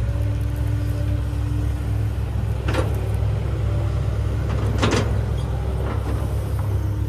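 Hydraulic excavator's diesel engine running steadily, with a faint hydraulic whine. Two sharp metallic clanks come about three and five seconds in.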